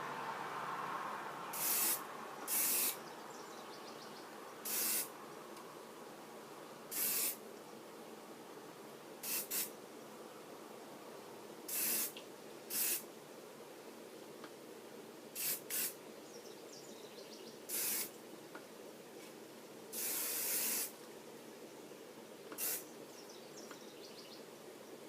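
Herbal Essences hairspray sprayed onto hair in about a dozen short hissing bursts, some in quick pairs, with one longer spray about twenty seconds in.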